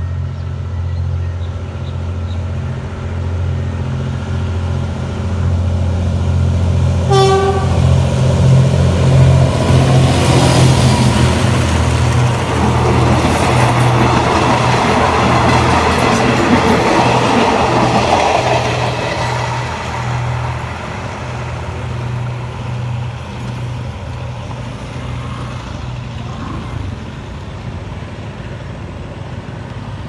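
Diesel locomotive hauling a passenger train, its engine running steadily as it approaches, with one short horn blast about seven seconds in. The coaches then pass close by, wheel-and-rail noise loudest midway, fading as the train moves away.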